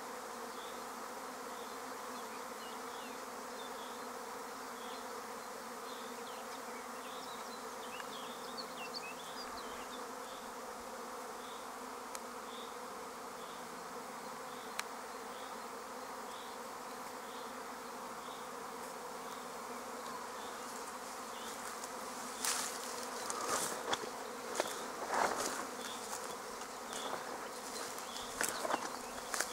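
Steady hum of a honeybee swarm in flight, thousands of bees buzzing together. From about two-thirds of the way through, irregular rustles and clicks break in over the hum.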